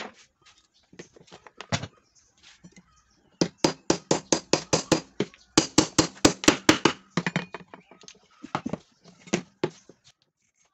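Claw hammer tapping a glued wooden false tenon into its mortise: two quick runs of light taps, about six a second, in the middle, with scattered single knocks before and after.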